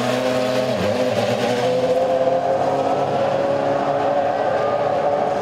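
Ferrari Formula 1 car engine pulling away at low pit-lane speed. It gives a loud, high, buzzy note that dips briefly about a second in and then holds nearly steady, sinking slowly.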